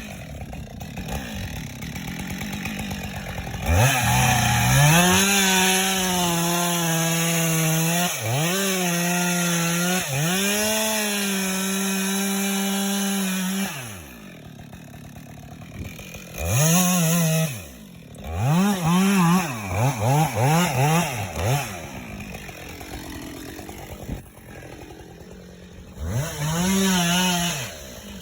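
Husqvarna chainsaw cutting wood: it revs up about four seconds in and holds high, steady revs for about ten seconds, dipping briefly twice as the chain bites, then drops to idle. Several short throttle blips follow, rising and falling quickly, with one more near the end.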